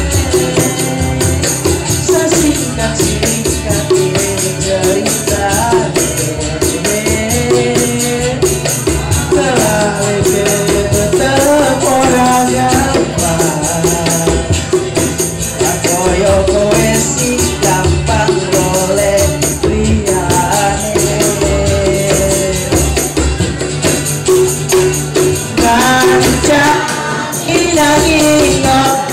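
Live song: a male voice sings a melody into a microphone over strummed acoustic guitar and percussion with a steady high shimmer.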